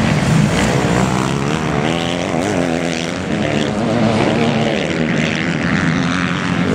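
Several motocross bike engines revving on the track, their pitch rising and falling as the riders open and close the throttle.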